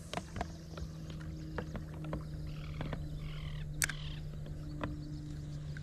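Steady low electric hum, typical of a bass boat's trolling motor holding position, with scattered light clicks and taps from rod and reel handling.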